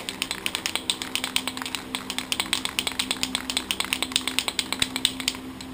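Aerosol can of Dupli-Color caliper paint being shaken, its mixing ball rattling in a fast, even rhythm of sharp clicks that stops about five seconds in.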